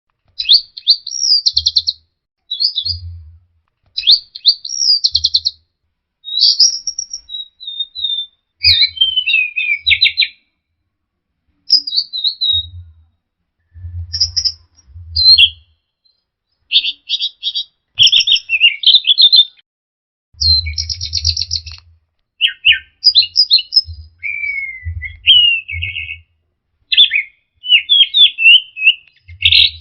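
Orange-headed thrush (anis merah) singing a fast, varied song of whistles, trills and chattering notes in phrases of a second or two with short pauses between. A low rumble sits under several phrases.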